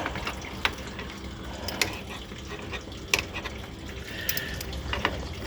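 Hand tools clinking and clicking against metal fittings while the radiator's fasteners are worked loose, a few separate knocks spread through, over a steady low hum.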